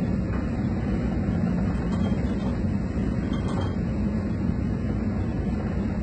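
Steady low rumble and hum of a tanker under way in heavy seas: ship's engine drone mixed with wind and sea noise.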